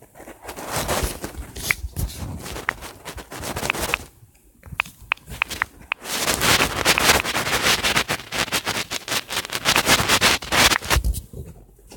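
Rustling and scraping handling noise with dense crackling clicks, dying down for a moment about four seconds in and then strongest through most of the second half.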